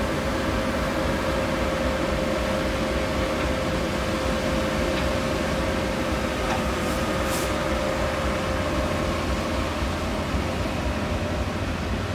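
GE B23-7 diesel locomotive running steadily with a constant whine. A short hiss about seven seconds in.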